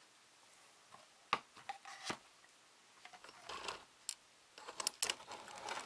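Soft vinyl figure pieces handled and set down on a desk: scattered light clicks and knocks with brief rubbing, busiest near the end.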